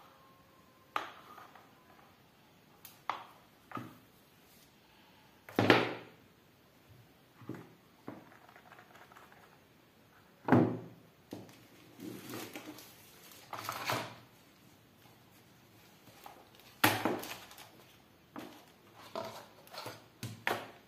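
Gloved hands handling a phone's packaging: a charging cable, paper inserts and cardboard box trays, giving scattered knocks, taps and short rustles, the loudest about six, ten and seventeen seconds in.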